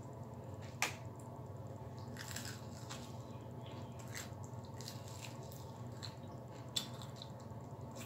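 A person eating a fried chicken wing: pulling the meat apart, biting and chewing, with small wet squishing and scratchy sounds. Two sharp clicks stand out, one about a second in and one near the end, over a steady low hum.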